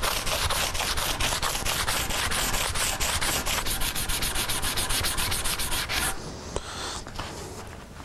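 Sandpaper scrubbed rapidly back and forth on a wooden chair frame, about six strokes a second, sanding away excess dried wood filler. The scrubbing stops about six seconds in, leaving only fainter rubbing.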